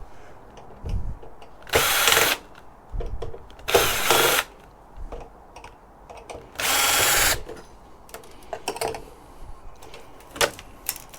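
Cordless drill-driver run in three short bursts, unscrewing the screws that hold a server's steel frame to the motherboard, with clicks and knocks of parts being handled in between.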